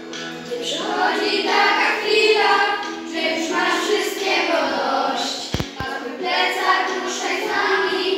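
Group of children singing a song together, with two quick thumps close together a little past halfway.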